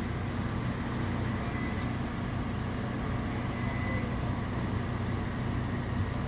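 2010 Toyota Corolla XLi engine idling steadily with the air conditioning on, running smoothly with no misfire now that a loose wiring connector has been replaced.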